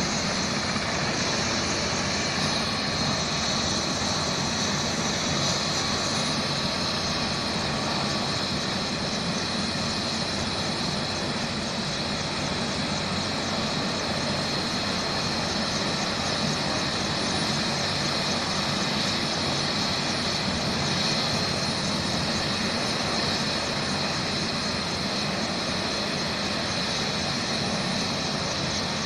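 Helicopter turbine engine running steadily on the ground before take-off, a constant rush of engine and rotor noise with a steady high whine.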